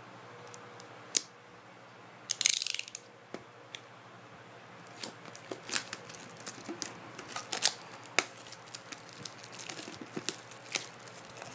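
A box cutter's blade scraping and slicing through the plastic shrink-wrap on a metal tin, loudest in a short burst about two seconds in. After that comes a run of small crackles and clicks as the wrap is peeled and crinkled off by hand.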